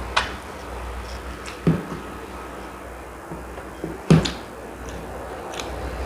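Eating sounds of someone chewing linguiça sausage: three short, louder mouth smacks, one near the start, one at under two seconds and one about four seconds in, with fainter clicks between them. A steady low hum runs underneath.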